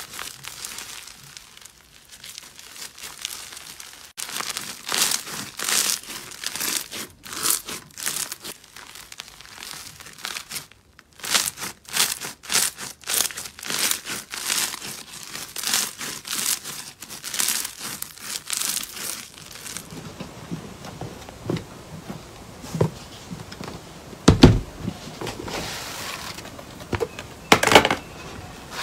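Hands squeezing and stretching crunchy, bead-textured slime, giving a dense run of crackles and pops. Past the middle it turns quieter and softer, with two deep thuds near the end.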